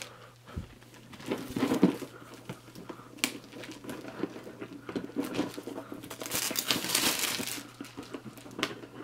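Loose plastic shrink-wrap crinkling while a cardboard board-game box is handled and turned over, with a sharp tap about three seconds in and a longer stretch of rustling around six to seven seconds in.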